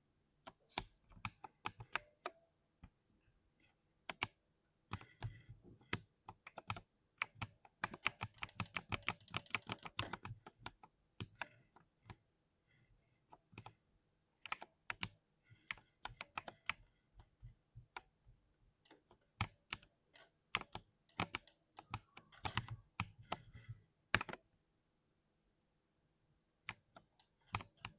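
Typing on an oiled (lubed) 60% mechanical keyboard: irregular runs of keystrokes, with a fast flurry of presses around eight to ten seconds in and a short pause near the end.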